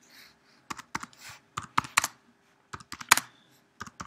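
Typing on a computer keyboard: about a dozen quick keystrokes in small uneven clusters as a short phrase is typed in.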